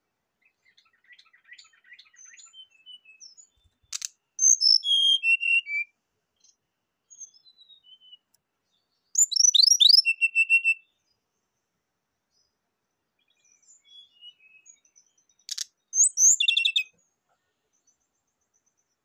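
Brown-chested jungle flycatcher (SRDC) singing: three loud phrases of quick, sliding whistled notes, about four, nine and sixteen seconds in, with softer chirps between. A sharp click comes just before the first and the last phrase.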